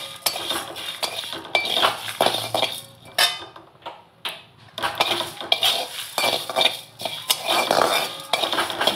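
Flat steel spatula scraping and clinking against a steel wok as whole coriander seeds and dried red chillies are stirred while dry-roasting, the seeds rattling across the metal. Irregular strokes, with a short lull about four seconds in.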